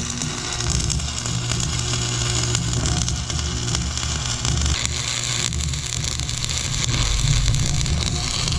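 Stick-welding arc from an AC buzz-box welder: a steady crackling hiss over a low electrical hum as a rod burns.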